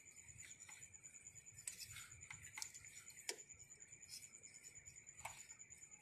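Faint, scattered clicks and taps of fingers working a plastic wiring connector at the reverse light switch on the gearbox, the sharpest a little past halfway, over a steady, faint, high-pitched whine.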